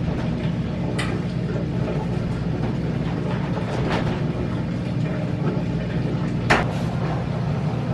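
Samsung electric clothes dryer running after its heating element was replaced, a steady hum and rumble from the turning drum. A few sharp clicks come through it.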